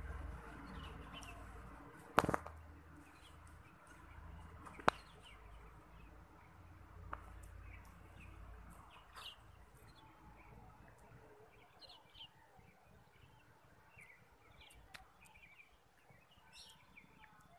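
Scattered short bird chirps and clucks in the background, with three sharp clicks in the first half, the loudest about two seconds in, over a low rumble that fades out after about nine seconds.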